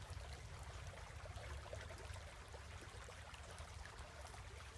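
Shallow creek faintly trickling and burbling over stones, with a low steady rumble underneath.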